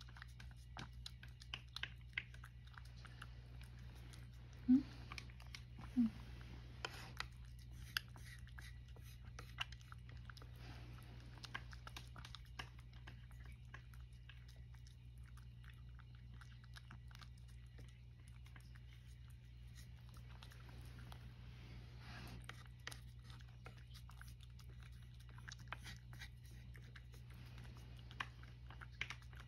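Domestic cat eating from a dish: many small, quiet clicks of chewing and lapping, with a steady low hum behind. There are two short, low voice-like sounds about five and six seconds in.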